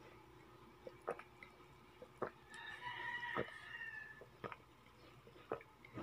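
Faint close-up swallowing: about five gulps, roughly one a second, as a drink is taken from a plastic cup. About halfway through, a drawn-out pitched call sounds in the background for about a second and a half.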